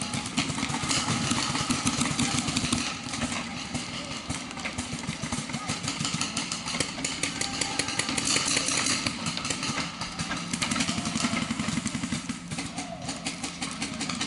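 Paintball markers firing rapid strings of shots, a fast run of sharp pops.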